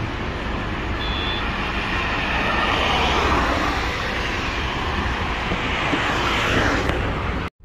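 Road traffic passing at speed on an expressway, heard from the roadside: a steady rush of tyre and wind noise that swells as vehicles sweep past, loudest about three seconds in and again near the end. The sound cuts off abruptly just before the end.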